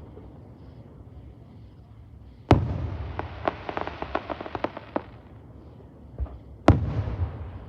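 Fireworks going off: a sharp bang followed by a couple of seconds of rapid crackling pops, then a faint pop and another sharp bang near the end with a rumbling tail.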